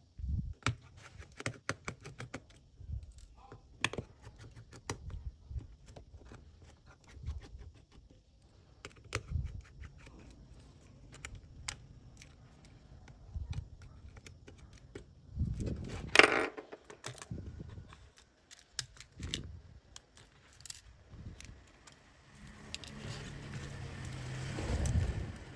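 Small metal repair tools clicking and tapping on a Xiaomi Redmi Note 7's internals as screws and shield plates are undone, with a louder clatter about two-thirds of the way through. Near the end a longer scraping rasp as a pry tool works along the battery and its flex cable.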